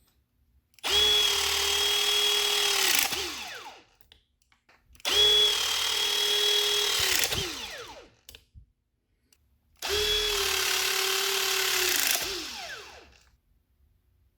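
Milwaukee M18 cordless hydraulic pistol crimper running three crimp cycles: each time the motor runs at a steady pitch for about two seconds, then winds down with a falling pitch.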